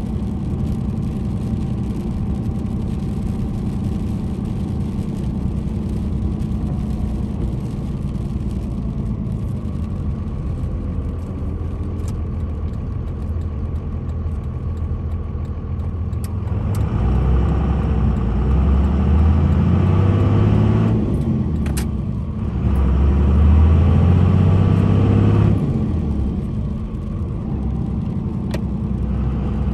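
2002 Dodge Ram 2500's 5.9 Cummins straight-six diesel heard from inside the cab, running steadily at low speed. About halfway through it pulls harder with a rising note, dips briefly, then pulls again with a rising note before settling back to a steady cruise.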